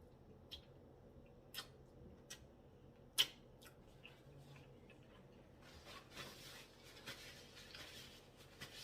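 Close-up eating sounds: a handful of sharp mouth clicks and smacks in the first few seconds, the loudest about three seconds in, then soft scratchy rustling for the last few seconds.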